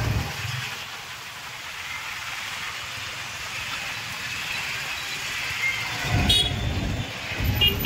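Road traffic noise, a steady hiss of passing vehicles, with a louder low rumble of an engine starting about six seconds in.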